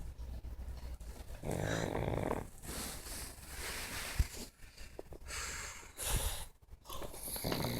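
Pug snoring: a long buzzing snore about a second and a half in and another near the end, with breathy wheezes between. A short sharp click falls a little past the four-second mark.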